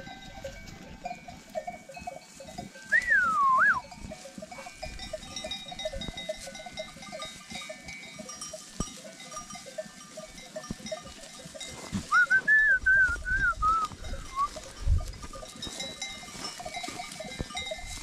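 A grazing flock of goats and sheep with bells clinking steadily. Two high wavering calls stand out: a short one about three seconds in and a longer one from about twelve seconds.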